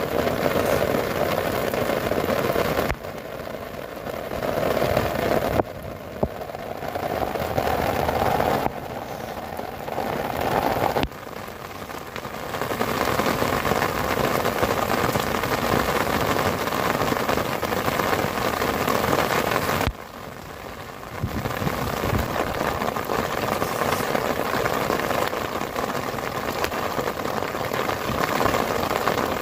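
Heavy rain drumming on the tent fabric, heard from inside the tent as a dense, steady patter. Its loudness drops and jumps back abruptly several times.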